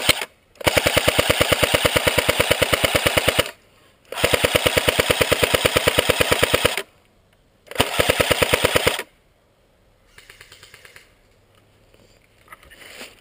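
Airsoft gun firing long full-auto bursts close by: three long strings of rapid shots with short breaks between them, then fainter bursts from farther off near the end.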